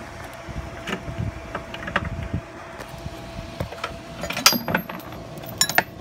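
Light knocks and a few sharp metallic clinks as a motorcycle rear wheel is slid out of the swingarm, with its chain, sprocket and axle spacers knocking together. The sharpest clink comes about four and a half seconds in, with a quick cluster near the end.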